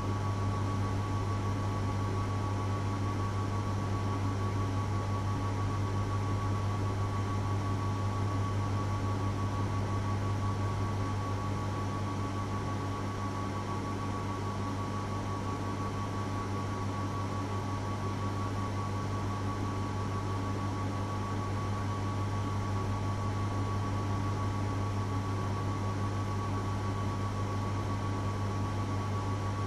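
Steady electrical appliance hum: a strong low hum with a fainter high whine over a constant hiss, unchanging throughout.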